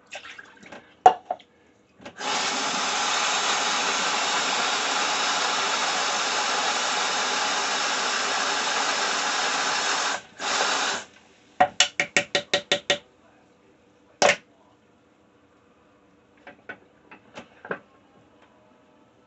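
Bathroom sink tap running steadily for about eight seconds, shut off, then run again briefly. After it comes a quick series of about eight sharp knocks, then a few faint clicks near the end.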